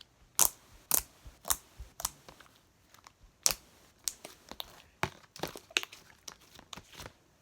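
Glossy, jiggly saline-activated slime being squished and played with by hand, giving irregular sharp pops and clicks, a few a second.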